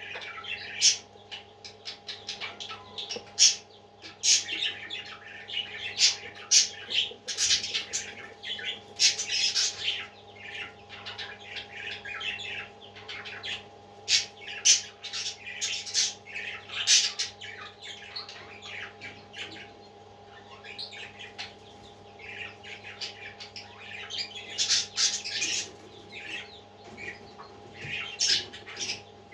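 Parrots squawking and chirping in quick, repeated short calls, with a brief lull partway through, over a steady low electrical hum.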